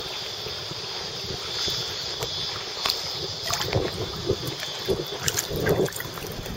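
Water splashing and sloshing from feet kicking in the sea behind an inflatable lilo, over a steady hiss of wind on the microphone. The splashes come more often in the second half.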